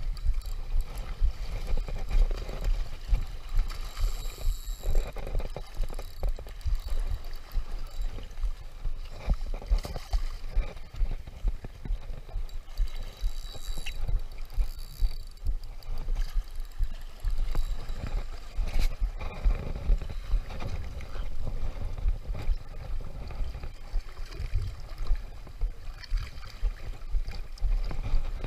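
Wind buffeting the microphone in uneven gusts, over small waves washing against shoreline rocks.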